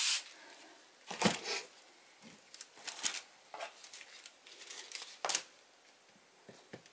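Short squirts of water into small plastic cups of acrylic paint, the strongest about a second in, followed by light clicks and rustles of the cups being handled.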